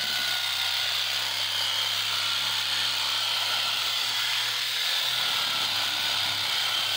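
Reciprocating saw with a Starrett demolition blade running steadily as it cuts through thick steel on a Volkswagen Kombi, a continuous hiss of metal cutting over the motor's hum; the hum drops out near the end.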